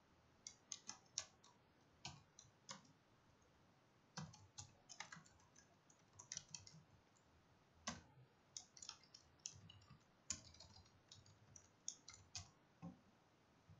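Faint typing on a computer keyboard: irregular keystrokes in short runs, with brief pauses between them.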